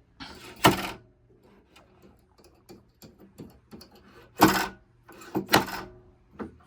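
Sharp mechanical clacks from a pinball machine's flipper assembly being worked by hand: three loud ones with lighter ticks between.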